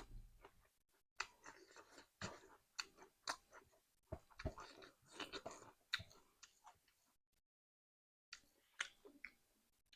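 A person chewing food close to the microphone, with quick, irregular wet clicks and smacks of the mouth. The chewing breaks off for about a second near the end, then a few more clicks follow.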